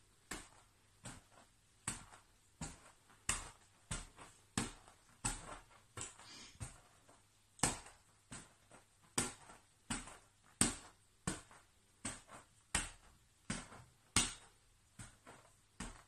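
A ball bounced repeatedly on the floor by hand, about one bounce every two-thirds of a second, some bounces louder than others.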